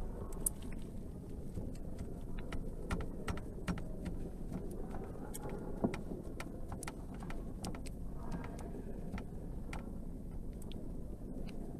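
A metal carving instrument scraping and nicking a bar of soap in many short, irregular clicks, over a steady low background rumble.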